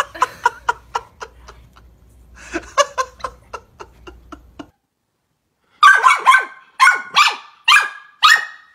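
A small dog barking about six times in quick succession, each bark short and falling in pitch, in the second half. Before that, a run of quieter rapid short sounds.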